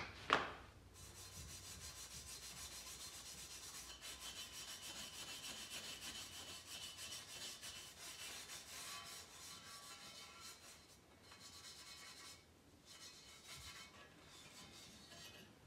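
Rust being scrubbed by hand off a metal dirt bike exhaust pipe with an abrasive: a faint, steady scraping rub with a few short pauses in the second half. A single knock about half a second in, as the pipe is taken up.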